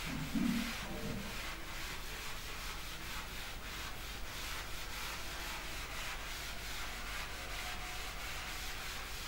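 Hand-drawing strokes rubbing on a writing surface while a graph is sketched: an irregular run of short, scratchy strokes.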